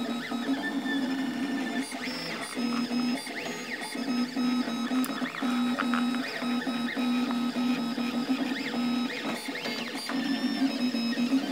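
Desktop FDM 3D printer printing: its stepper motors whine in short runs, the tone stopping and starting with each move and sweeping up and down in pitch as the head speeds up and slows down.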